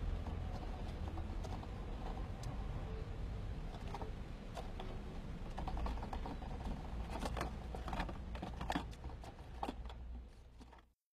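A mouse scrabbling inside a plastic water-bottle trap: irregular light clicks and scratches on plastic over a low rumble, cutting off suddenly near the end.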